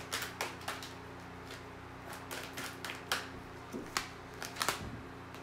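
A tarot deck being shuffled by hand: an irregular run of light card flicks and slaps, a few of them sharper than the rest.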